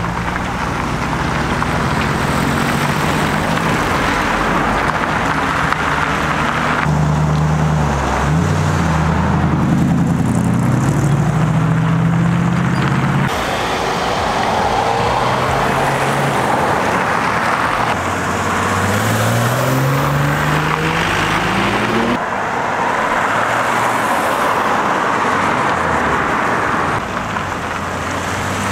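Cars pulling away one after another, each engine revving and accelerating past with a rising pitch, with abrupt cuts between the cars.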